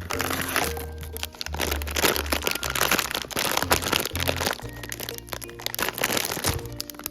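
Blind-box packaging crackling and crinkling as it is opened by hand, over background music with a steady bass line.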